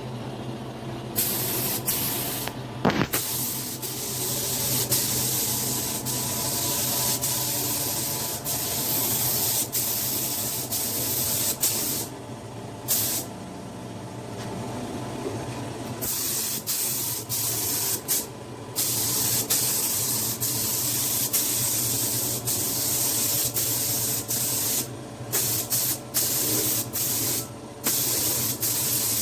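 Paint being sprayed onto the repaired plastic bumper: a loud hiss that stops briefly several times and restarts, as the spray is released and pressed again. A steady low hum runs underneath.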